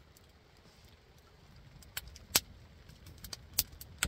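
Split firewood burning in a stone fire pit, crackling: quiet at first, then sharp pops starting about halfway through, one loud pop among them, coming more often toward the end.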